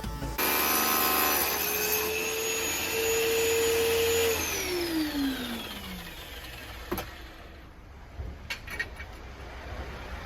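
Electric power tool motor switched on, running at a steady whine for about four seconds, then switched off and winding down with a falling pitch. A sharp click and a few light knocks follow.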